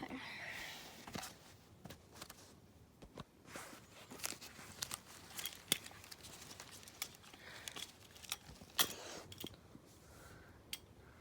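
Irregular sharp clicks and short rustles of small objects being handled close to the microphone, a dozen or so light taps and clicks with one louder click about nine seconds in.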